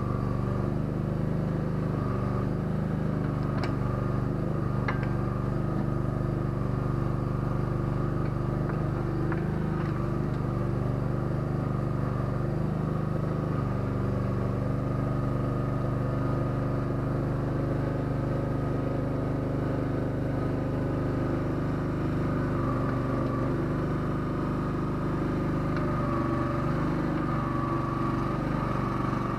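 Small engine of an ATV backhoe rig running steadily at an even speed, with a few faint clicks or knocks in the first ten seconds.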